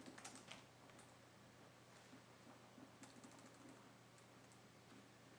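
Near silence: faint room tone with a steady low hum and a few soft, faint clicks, some in the first half second and a small cluster about three seconds in.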